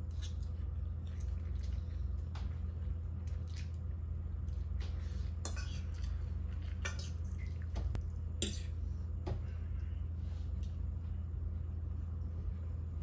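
A metal fork twirling noodles on a plate, clinking and scraping against it in scattered taps and short scrapes, over a steady low hum.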